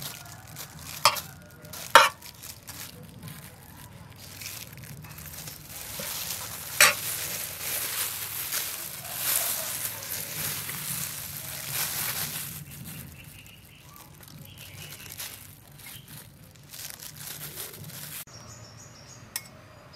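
Metal spoon clinking sharply against a metal tray a few times, loudest about two seconds in, with a stretch of soft crackling hiss in the middle as scallion oil is spooned over banh hoi rice vermicelli sheets.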